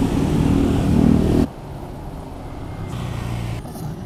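Street traffic: a motor vehicle's engine running close by, which cuts off abruptly about a second and a half in, leaving a quieter, steady traffic rumble.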